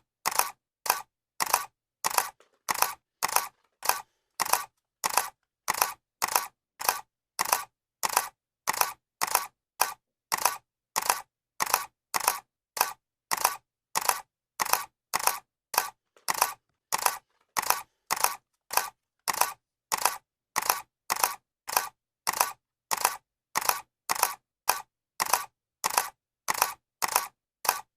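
Camera shutter clicking over and over, about two sharp clicks a second, evenly spaced with silence between them.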